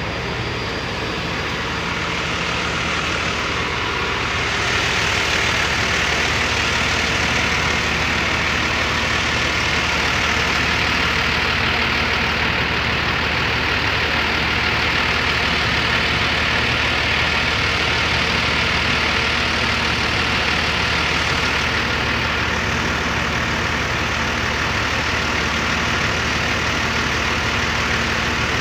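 An engine running steadily: a constant low hum under a broad rushing noise that grows louder about four seconds in and then holds.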